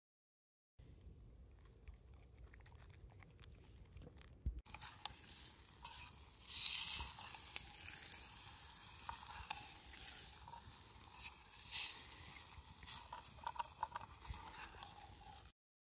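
Food cooking in a metal mess tin over an open campfire, with a utensil stirring and scraping against the tin over sizzling. It gets louder from about four and a half seconds in, with many small clicks and scrapes.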